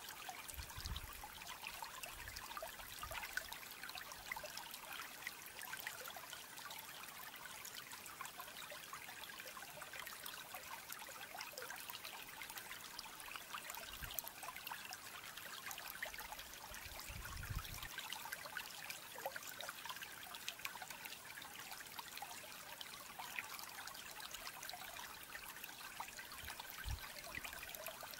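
Steady rushing background noise with faint scattered ticks, broken by a few soft low thumps.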